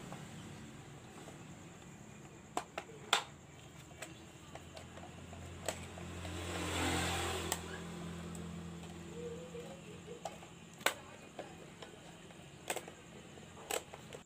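Plastic housing halves of a hand mixer clicking as they are pressed and fitted together: a series of sharp, separate clicks over a faint low hum. A low rumble swells and fades about halfway through.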